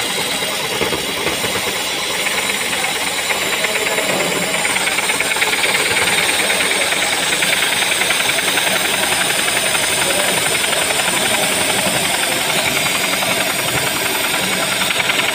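Compressed-air blow gun hissing steadily at a small metal spinner on a ball bearing, driving it at high speed with a fast, pulsing whirr under the air noise.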